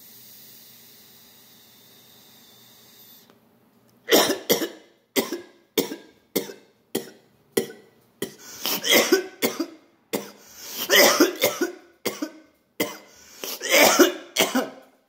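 A man coughing in a long fit of repeated coughs, starting about four seconds in, brought on by a hit of cannabis wax smoked from a pipe. Before it, a steady hiss for about three seconds as the pipe is lit and drawn on.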